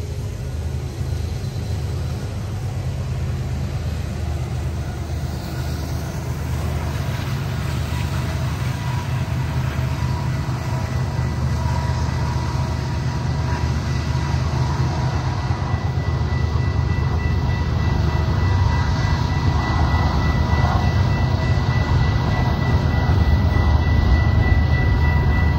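BNSF freight train's diesel locomotives rumbling, low and steady, growing gradually louder as the train comes on. A thin, high, steady whine joins in about two-thirds of the way through.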